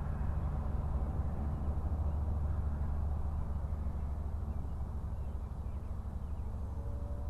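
Wind buffeting the microphone of a head-strapped action camera: a steady low rumble. A faint whine comes in near the end.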